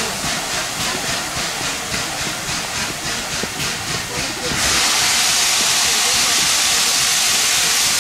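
Steam locomotive Duchess of Sutherland, an LMS Princess Coronation class Pacific, standing and hissing steam. First comes a quick, regular pulsing hiss; then, a little past halfway, a sudden loud, steady rush of steam sets in and keeps going.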